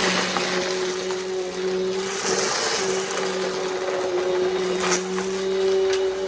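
Bissell compact vacuum cleaner running with a steady motor hum and rushing air, with scattered clicks as bits of the mess are sucked up and a sharper knock near the end.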